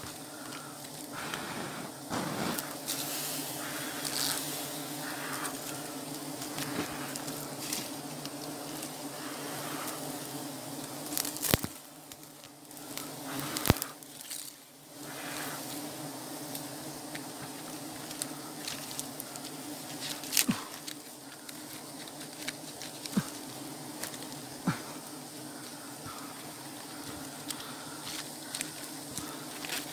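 Swarm of wild honeybees buzzing around their open comb in a steady low hum: the colony is stirred up while it is being smoked for the honey harvest. A few sharp knocks or snaps cut through, the loudest about halfway through.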